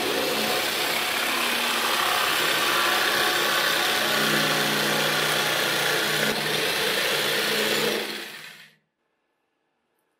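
Electric jigsaw cutting through a wooden board, its blade sawing steadily for about eight seconds, then switched off and winding down.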